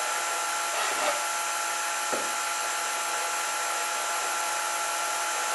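Steady machine hum with several fixed high-pitched tones, like a motor or fan running in a woodshop, with two faint brief scraping sounds about one and two seconds in.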